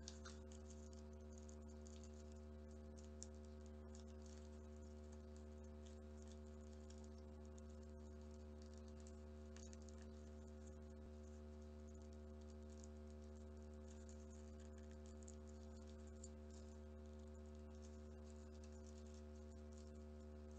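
Faint crackling and light ticking of red origami paper being creased and shaped by hand, over a steady electrical hum.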